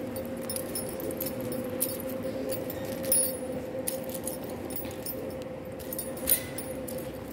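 Footsteps across a tiled floor with scattered light clicking and jingling, over a steady two-tone mechanical hum.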